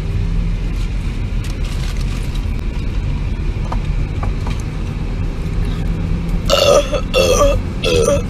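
Steady road and engine noise inside a moving car's cabin, then near the end a quick run of four short, loud burps about half a second apart.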